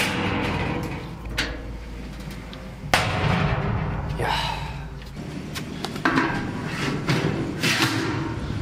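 Steel cooking grate being set into a charcoal barbecue grill: several metal clanks and knocks, a second or two apart.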